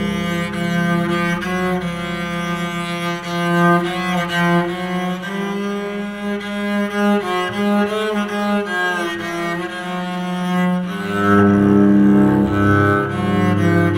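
Homemade electric cello being bowed through a small amplifier, playing a slow melody of sustained notes with several pitches sounding together. Deeper low notes come in about eleven seconds in.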